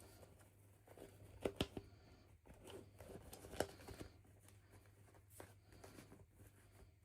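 Hands handling small toys and packaging: light rustling and a few sharp clicks, two close together about a second and a half in and one more about two seconds later, over a faint steady low hum.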